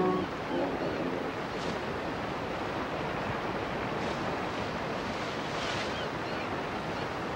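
Rushing white water of river rapids, a steady wash. The tail of a brown bear's growl fades in the first second.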